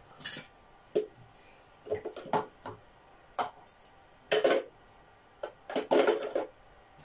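A string of short knocks and clatters of kitchen things being handled and set down on the counter and shelves, loudest near the end.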